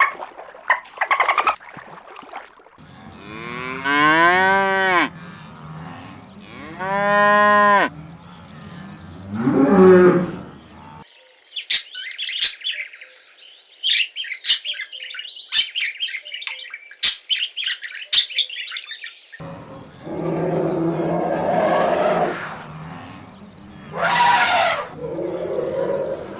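Cows mooing: two long, arching moos a few seconds in and a shorter call around ten seconds. A stretch of thin, high chirping and clicks follows, then another loud call over low background noise near the end.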